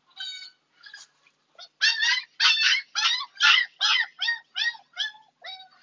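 Husky puppy crying in a rapid series of short, high-pitched yelps, a few faint ones first, then about nine loud ones at two to three a second from about two seconds in.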